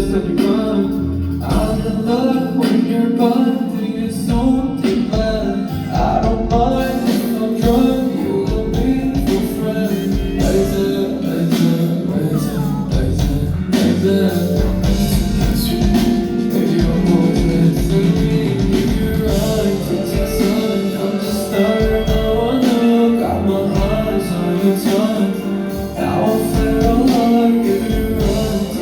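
A pop song performed live: a singer over a band backing with guitar and a steady beat, heard through concert loudspeakers.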